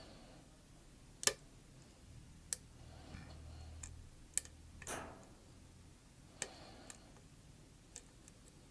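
Lock pick and tension wrench working the pins of a pin-tumbler challenge lock: about seven sharp, irregularly spaced metal clicks.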